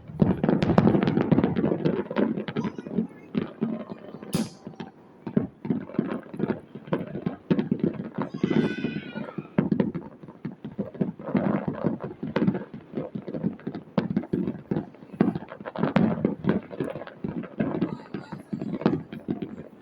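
Fireworks display: a rapid, continuous run of bangs and crackling pops, with a short pitched cry or whistle about eight seconds in.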